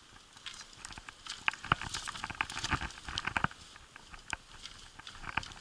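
Footsteps crunching through snow, an irregular run of short crunches and clicks.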